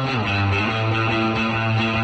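Rock music led by electric guitar, playing long held notes, with a slide down in pitch right at the start.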